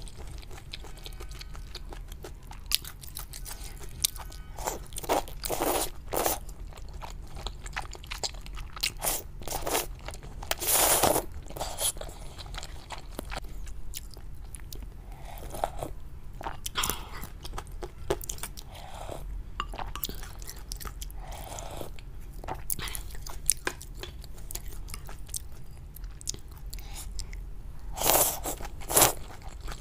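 Close-miked eating of spicy luosifen rice-noodle soup: wet chewing and biting in irregular bursts, with a mouthful of noodles slurped up near the end.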